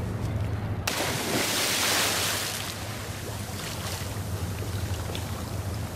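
A sudden big splash into water about a second in, then a rush of spray that dies away over the next two seconds, consistent with someone jumping into cold sea water. Steady wind buffets the microphone throughout.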